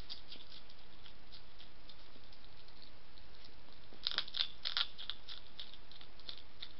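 European hedgehog eating from a dish: small crisp chewing and crunching clicks, with a cluster of louder crunches about four seconds in.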